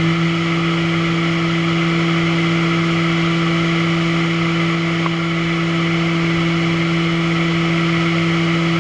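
Niigata SPN-50 horizontal machining centre spindle running with no load at 10,000 RPM: a steady whine holding one pitch over a steady hiss.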